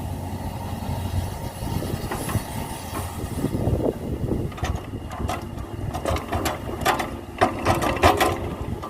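Heavy diesel earthmoving machinery running with a steady low rumble. From about halfway there is a quick run of metallic clanks and knocks, the loudest near the end.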